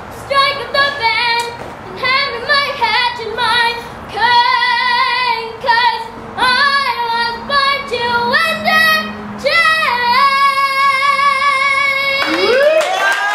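A young girl singing a show tune into a microphone, short phrases at first and then long held notes, with a big final note starting near the end.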